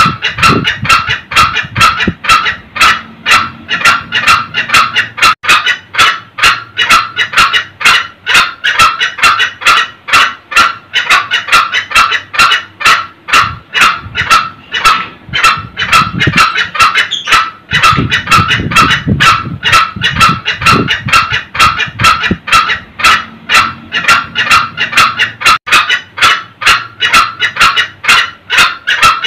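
Green junglefowl, male and female, cackling: a loud, unbroken run of sharp, rapid 'kek' calls, several a second.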